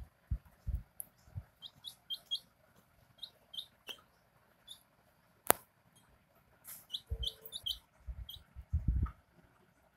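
A young chicken peeping in short, high chirps, bunched in quick runs, while it drinks from a ceramic cup, with low thuds here and there and one sharp click about halfway through, the loudest sound.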